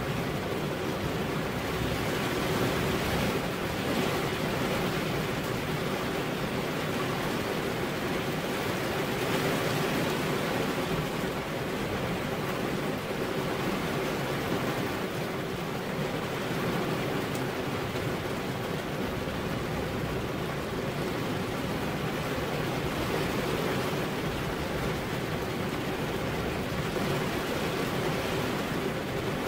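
Steady rain falling on a window, an even hiss with no single drops standing out.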